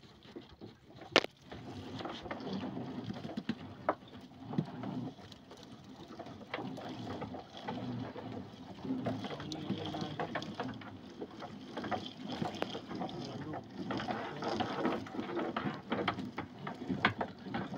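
Monofilament gill net being hauled hand over hand into a small boat with mullet caught in it. The wet mesh rustles and drips without a break, with scattered irregular clicks and knocks and one sharp knock about a second in.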